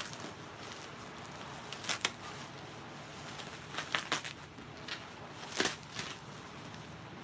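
Plastic-bagged comic books being handled: a string of short crinkles and clicks, the sharpest about two seconds in and again past the halfway point.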